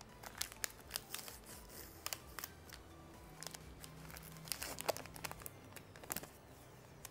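Plastic wafer-packet wrapper being crinkled and torn open by hand: a run of sharp crackles and snaps, loudest about five seconds in.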